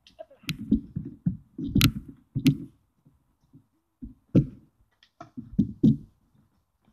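Hands kneading and squeezing large batches of slime in plastic bowls: irregular wet squelches and slaps, with a short lull about three seconds in.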